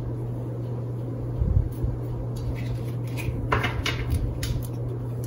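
Steady low hum with a few light knocks and clicks scattered through it, the clearest about a second and a half in and again past three seconds.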